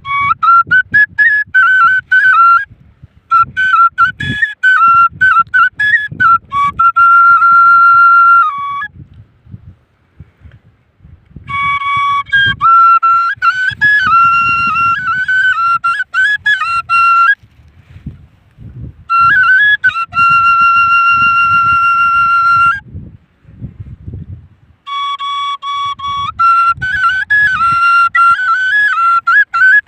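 Flute playing a Gojri folk melody in about five phrases with short pauses between them, the pitch sliding and trilling between notes with some long held notes. An irregular low rumble runs underneath.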